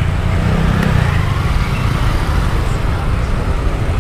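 Steady wind noise on a bicycle-mounted camera's microphone while riding in street traffic, with motorcycle and tricycle engines running close alongside.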